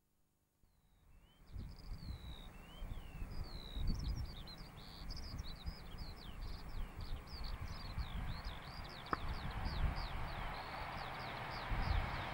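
Small birds singing in quick chirps and trills over a low, uneven rumble. The rushing noise of an approaching InterCity 125 High Speed Train builds up over the last few seconds. The sound fades in after about a second of silence.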